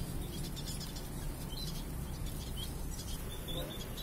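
Small local finches such as munias giving short, high chirps scattered through, over a steady low rumble.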